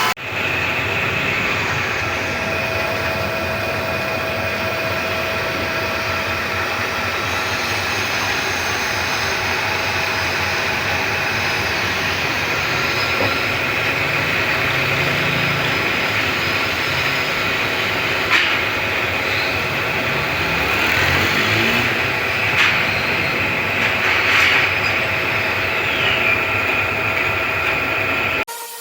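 Woodworking lathe running steadily: a continuous machine whir with a constant high whine and a few sharp clicks in the second half.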